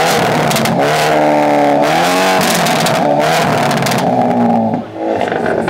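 Hyundai Elantra N's turbocharged 2.0-litre four-cylinder revved hard through its exhaust and held at high revs, the pitch wavering and stepping, with crackles and pops mixed in, before dropping back near the end.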